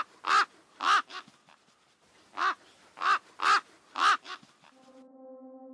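A crow-family bird cawing: a run of short, harsh caws in two bouts, about four and then about five. Soft ambient music with held tones fades in near the end.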